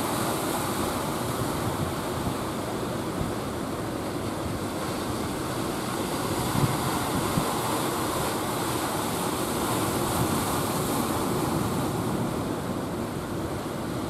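Steady rush of surf and churning waves, with wind buffeting the microphone.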